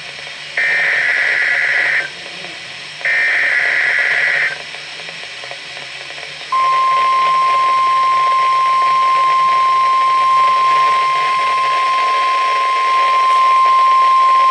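NOAA Weather Radio test signal: the last two of three SAME (Specific Area Message Encoding) data bursts, each about a second and a half long with a short gap between, followed about two seconds later by the single steady 1050 Hz tone-alert tone, which starts about six and a half seconds in and holds at one pitch.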